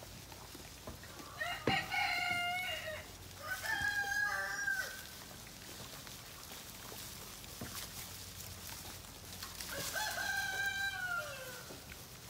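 Rooster crowing three times, each crow about a second and a half long, the last one falling in pitch at its end.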